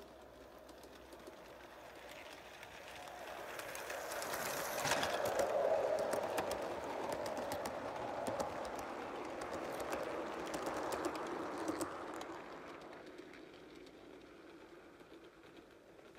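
O gauge coarse-scale model train running past close by, its wheels rumbling and clicking on the track. It swells as it approaches, is loudest for several seconds as the coaches pass, then fades away.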